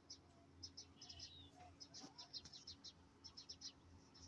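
Faint birds chirping in the background: short high chirps in quick runs, repeating every second or so, over a faint low hum.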